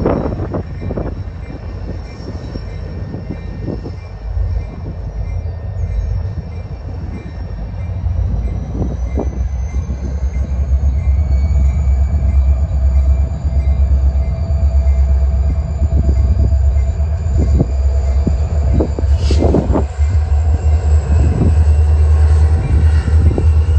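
Diesel freight locomotives approaching slowly, their engines rumbling and growing steadily louder. A thin steady whine joins in about ten seconds in.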